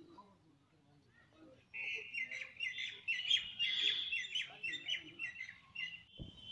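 A bird calling in a quick run of repeated high chirps, about three a second, starting about two seconds in and stopping near the end.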